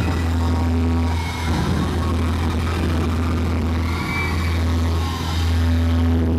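Live band music heard from the audience through a camera microphone, dominated by a loud, steady bass drone, with high gliding tones rising and falling over it.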